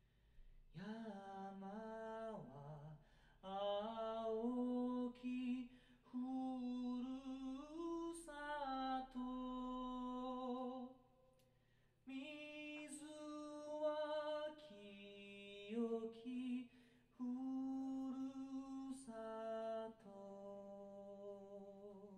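A man singing alone, unaccompanied: slow melodic phrases with long held notes that waver with vibrato, broken by short pauses between phrases.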